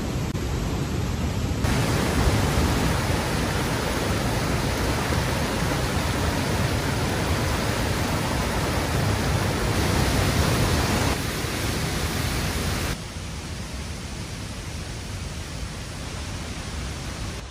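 Steady rushing of white water as a river pours over rocks at the top of a waterfall. It gets louder about two seconds in and drops abruptly quieter about thirteen seconds in.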